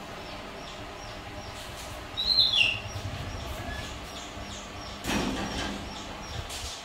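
A short, high animal squeak that falls in pitch about two seconds in, then a brief rustle just after five seconds.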